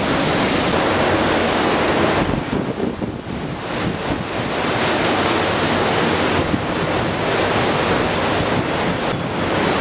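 Hurricane wind and heavy rain: a loud, steady rushing noise with wind rumbling on the microphone. It eases briefly about three seconds in, then builds again.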